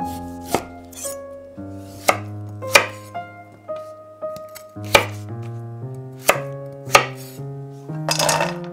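Chef's knife chopping swede on a wooden cutting board: about seven sharp single chops, irregularly spaced. Near the end, diced vegetables clatter into a metal pan. Background music with sustained notes plays throughout.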